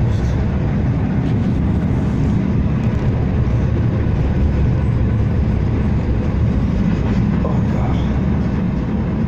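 Steady low rumble of a Blackpool heritage tram under way, heard from inside the passenger saloon: wheels running on the rails along with the car's running noise.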